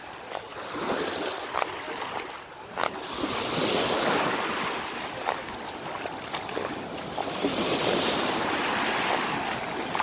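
Small Black Sea waves washing up onto a sandy shore, the surf swelling and easing every few seconds.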